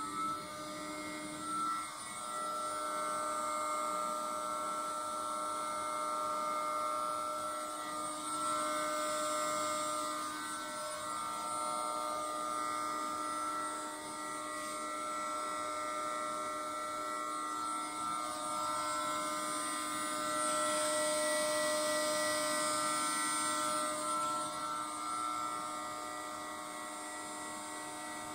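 CNC router spindle motor running steadily at about 18,000 rpm, a steady whine that finishes rising in pitch in the first moment as the spindle reaches speed.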